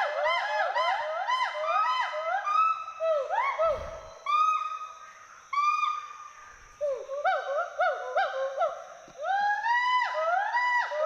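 Two western hoolock gibbons calling: a fast series of whoops that rise and fall in pitch, overlapping each other, thinning out briefly around the middle before picking up again.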